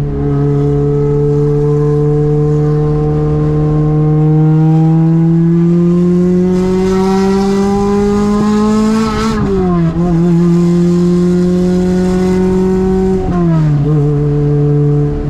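Toyota 2ZZ-GE 1.8-litre four-cylinder engine of a car on the move. The engine note holds steady, climbs slowly in pitch for several seconds as the car accelerates, drops quickly, holds again, and drops quickly once more near the end.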